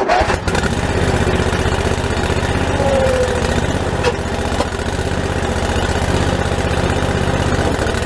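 Skid steer's engine starting and then running steadily.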